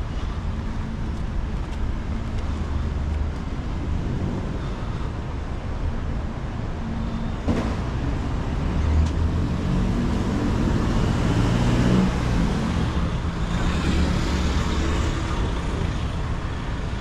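Street traffic: a steady low rumble of motor vehicles, with one passing close and growing loudest about twelve seconds in.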